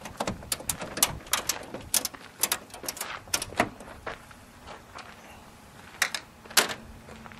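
Metal clicks and knocks as the bonnet catches of a 1938 SS Jaguar 100 are undone and one hinged side of the bonnet is lifted open. A quick run of clicks comes first, then two louder knocks about six seconds in.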